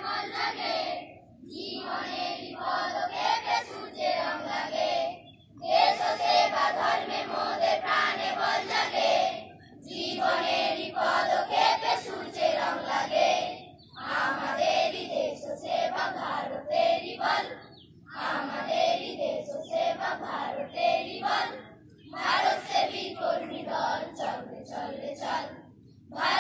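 A large group of schoolchildren's voices in unison, in phrases of about four seconds with short breaks between them.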